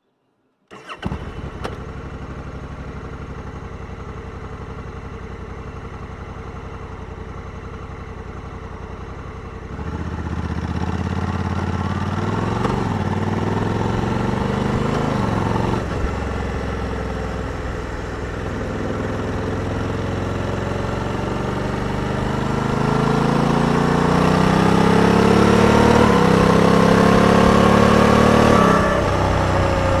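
Honda Africa Twin 1100 parallel-twin engine comes in abruptly about a second in and runs steadily at low revs. About ten seconds in it gets louder and accelerates, its revs climbing and then dropping several times as the dual-clutch (DCT) transmission shifts up.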